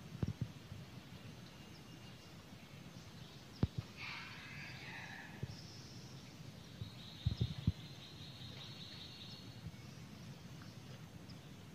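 Outdoor forest ambience with a short chirping animal call about four seconds in and a thinner, higher drawn-out call from about six and a half to nine and a half seconds, over a few low thumps.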